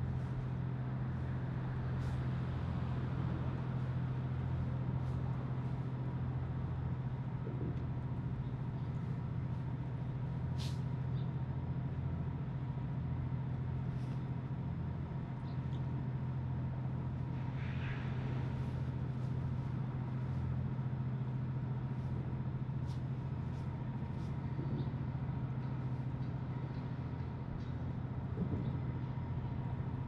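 Harbourside city ambience: a steady low mechanical hum with the sound of vehicles, a faint steady high tone above it, and scattered light ticks and clicks. A brief higher-pitched sound comes about eighteen seconds in.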